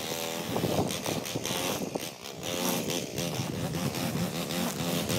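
Small gas string trimmer engine running, its pitch rising and falling as the throttle is worked, with wind buffeting the microphone.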